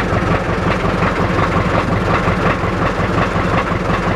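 Motor boat's engine running steadily under way, a low, even throb with no change in speed, heard from on board.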